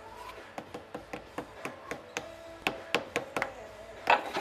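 A hammer tapping a metal three-jaw lathe chuck to seat it onto a very tight-fitting backplate that is not going on square: an irregular series of sharp metallic taps, about three a second, with the loudest strikes near the end.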